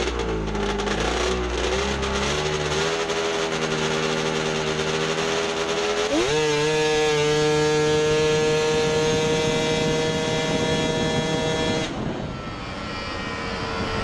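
Snowmobile engine at high revs holding a steady pitch, then climbing sharply about six seconds in to a higher held pitch, and cutting off suddenly near the end.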